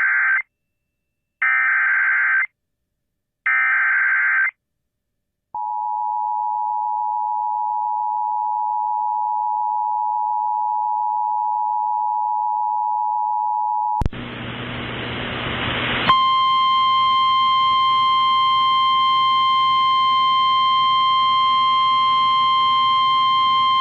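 Emergency Alert System broadcast tones. Three short screeching bursts of SAME header data come first. About five seconds in, the two-tone attention signal sounds steadily for about eight seconds. Then a burst of hiss-like static follows, and a single steady alert tone with faint overtones starts and holds.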